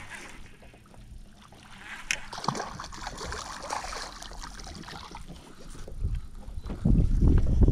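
Quiet handling sounds aboard a bass boat on the water: a sharp click at the start and another about two seconds in, then a loud, uneven low rumble from about seven seconds in.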